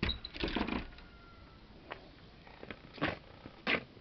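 Footsteps and scuffing on dirt and dry leaves, coming close: a quick run of scrapes and crackles in the first second, then two sharp, louder steps near the end.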